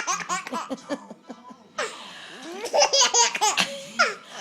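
A baby laughing hard in quick, high-pitched bursts of giggles. There is a pause of about a second midway, filled by a brief breathy rush of noise, before the laughter starts up again.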